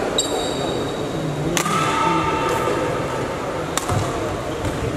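Badminton rally: rackets striking the shuttlecock in three sharp hits about two seconds apart, with short high squeaks after the hits and a low murmur of voices in a large hall.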